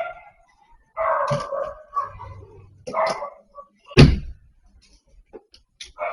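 A dog barking several times, with one longer drawn-out call about a second in. A single loud bang about four seconds in.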